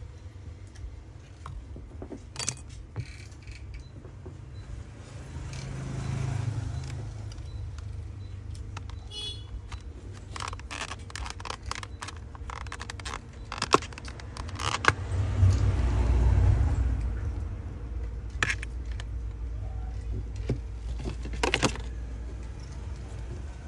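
Light metallic clicks, taps and scrapes from a spudger and from handling an iPhone 13's parts and a replacement screen, scattered through, with a low vehicle rumble swelling and fading twice in the background.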